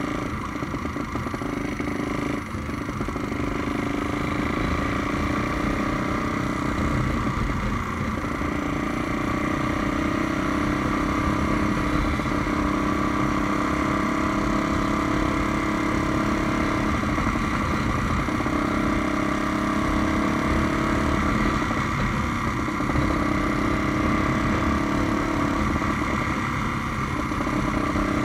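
A Honda Tornado motorcycle built up to 350 cc, its single-cylinder four-stroke engine running steadily under way, its note rising and falling slightly.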